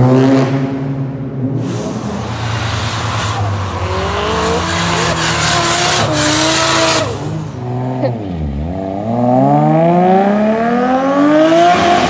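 Modified car engines revving hard. In the first half a burnout with tyre squeal holds the revs high. About two thirds of the way through, an engine note dips sharply and then climbs steadily until the end.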